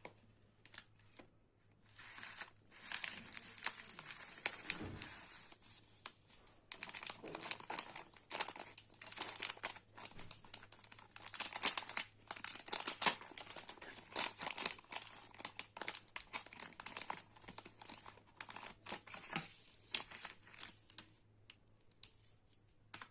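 Plastic packaging crinkling and tearing in irregular handfuls as a jewellery parcel is unwrapped. The crackling starts about two seconds in, pauses briefly, and stops shortly before the end.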